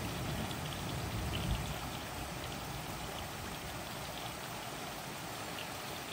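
Steady rain falling, with single drops ticking; a low rumble of thunder fades out over about the first two seconds.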